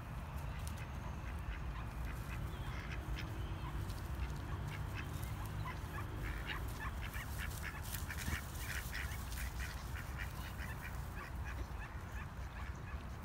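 Mallard ducks calling in a run of short quacks, thickest through the middle, over a steady low rumble.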